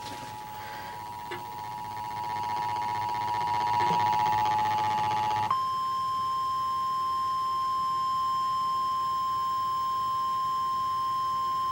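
Emergency Alert System attention signal, heralding a National Weather Service severe thunderstorm warning. A steady two-tone alarm sounds, then about five and a half seconds in it switches abruptly to a single, slightly higher steady tone, which holds to the end.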